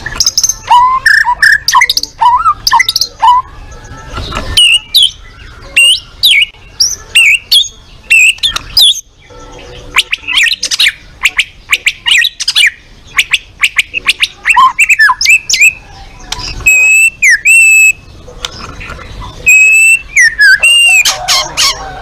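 White-rumped shama singing: loud, varied phrases of whistles, chirps and fast trills with sharp pitch glides, broken by a few short pauses.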